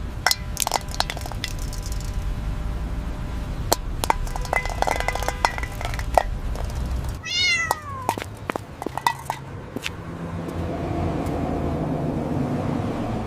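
A cat meows once, about seven seconds in, a falling call. Around it runs a string of sharp clicks and clinks over a steady low rumble.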